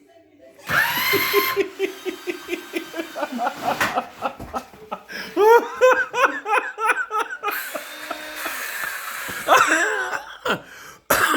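A man laughing hard in long runs of rapid pulses, breaking off briefly about four seconds in and starting again.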